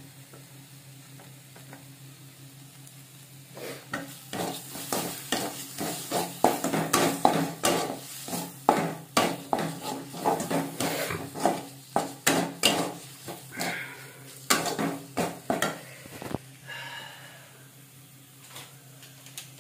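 Flat metal spatula stirring and scraping a thick onion–ginger-garlic–turmeric masala paste around a metal kadai, frying it down dry over a low flame. Quick, sharp scrapes against the pan start about four seconds in and go on for about twelve seconds before easing off.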